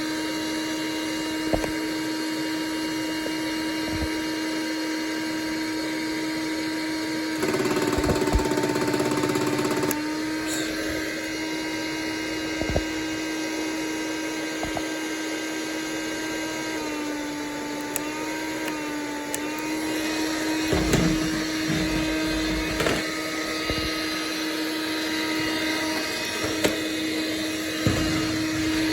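Oreck Electrikbroom Quickstick cordless stick vacuum running with a steady motor whine as it is pushed over carpet. It briefly rises in pitch and gets louder about seven seconds in, then dips for a moment later on. A few low knocks come near the end. The owner says its power is not as strong as it used to be.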